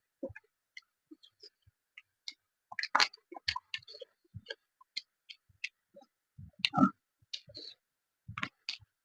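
Close-miked mouth sounds of a person eating: scattered short clicks and smacks of chewing. There are louder bursts about three seconds in, around seven seconds, and near the end.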